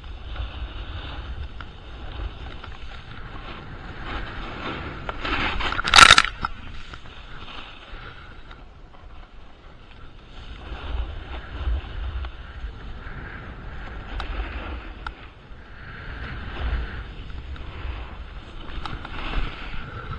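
Edges scraping over snow during a downhill run, surging in waves with each turn, with wind rumbling on the microphone. One sharp, loud scrape about six seconds in.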